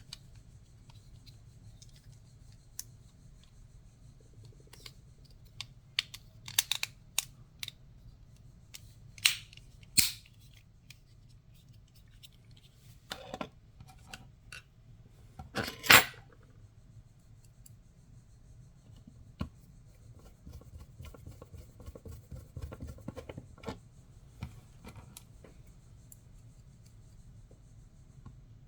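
Scattered small clicks, snaps and scrapes of a TSA combination lock's parts being handled as its case is closed back up. The loudest snap comes about sixteen seconds in.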